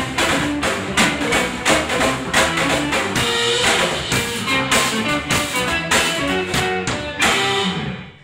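Electric guitar, electric bass and drum kit playing together in a live trio, with steady drum hits under the guitar and bass lines. The band stops about seven seconds in on the last notes of the piece, which ring briefly and die away.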